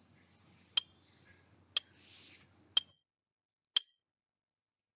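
Countdown timer tick sound effect: four sharp clock-like ticks, one a second.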